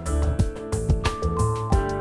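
Instrumental background music with held keyboard-like notes over a steady beat.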